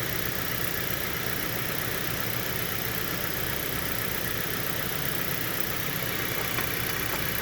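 Steady mechanical running noise from a 2011 Dodge Avenger's engine bay: an even low hum under a broad whir that holds constant throughout.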